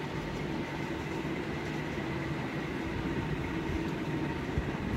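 Electric fan running with a steady whir and hum, a few faint constant tones held under it.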